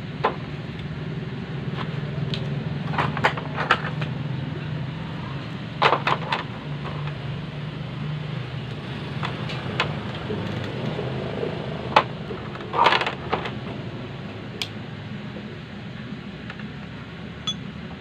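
Scattered clicks and knocks of electrical wire and pliers being handled, with a few short clusters of taps, over a steady low hum.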